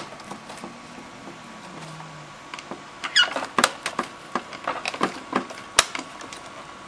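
Plastic panel of a Dell Inspiron laptop being pried up and bent back: a run of irregular clicks and snaps as its clips let go, with a short plastic squeak about three seconds in and a sharp snap near six seconds.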